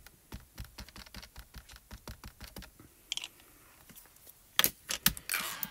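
Small plastic ink cube (Altenew mini ink pad) being tapped rapidly onto a clear photopolymer stamp to ink it, light clicks at about six taps a second for the first couple of seconds. Near the end come a few louder clicks and a short rustle as the ink pad is handled.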